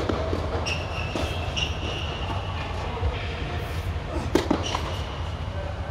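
Tennis racket striking the ball twice: an overhead smash right at the start and a serve about four and a half seconds in, over a steady low hum.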